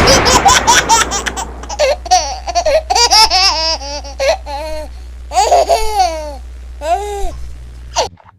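High-pitched laughter in several bouts, opening with a sudden noisy burst, over a steady low hum that cuts off abruptly near the end.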